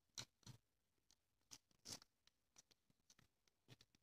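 Faint, irregular clicks and scrapes of a toothpick stirring a shampoo-and-salt mixture in a small plastic cap.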